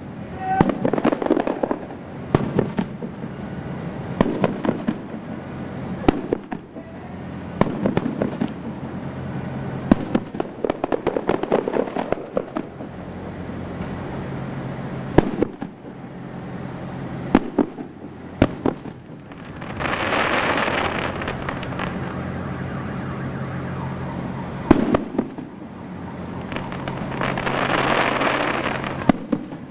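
Fireworks display: shells bursting overhead with sharp bangs at irregular intervals, often several close together. Two longer swells of hissing noise come about two-thirds of the way through and near the end, over a faint steady low hum.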